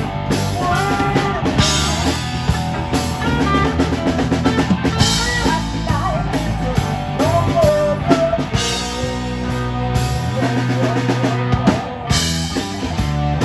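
Live rock band playing through a PA: a woman singing over electric guitars and a drum kit, with a short break in the playing near the end.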